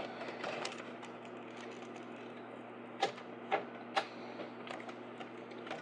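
Light clicks and taps of computer parts being handled during a PC build, with three sharper clicks about half a second apart midway, over a steady low hum.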